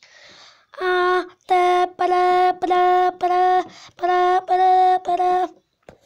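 A child's voice chanting a run of about seven short notes, all held on one steady pitch, in play imitation of a washing machine at work.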